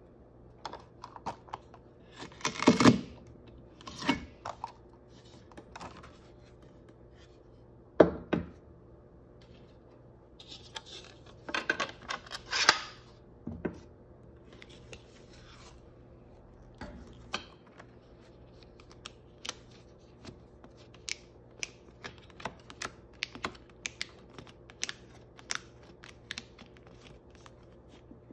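Disc-bound planner punch clicking and clunking as it cuts the binding holes in a laminated cover, with rustling of the stiff laminated sheet. After that comes a run of many small, sharp clicks as the cover is pressed onto plastic binding discs.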